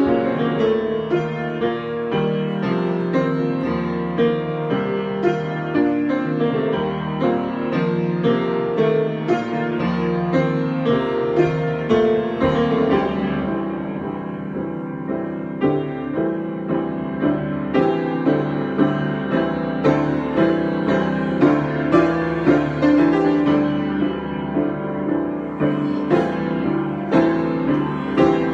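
Solo piano playing an improvisation, a steady flow of struck notes and chords.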